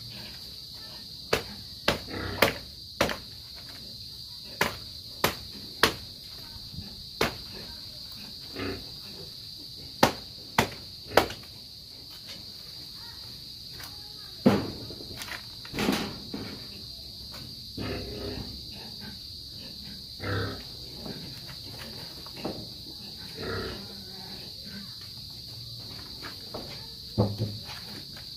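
Sharp knocks from work on bamboo poles, coming in quick runs of two or three about half a second apart over the first eleven seconds, with two heavier knocks a few seconds later. A steady high insect drone runs underneath, and a few short animal calls come near the end.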